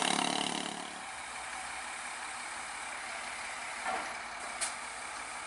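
Truck diesel engine running, dropping away about a second in and leaving steady engine and site noise, with a short sharp click a little after four seconds.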